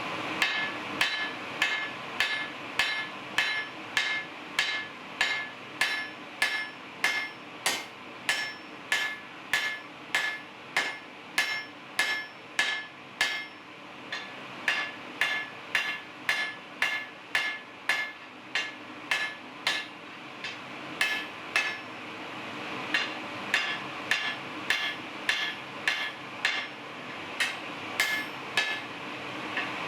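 Hand hammer blows on hot steel over an anvil, about two strikes a second, each with a short metallic ring, pausing briefly twice: the end of a jackhammer bit being forged out into a large blade.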